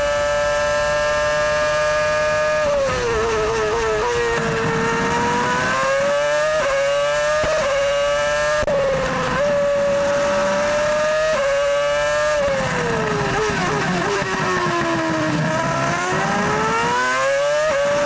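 Ferrari F2007 Formula One car's 2.4-litre V8 heard onboard. It holds a high, steady scream at full throttle for the first few seconds. Then it drops in quick steps through rapid downshifts under braking and climbs again through quick upshifts. The same braking-and-accelerating pattern comes a second time, past the middle.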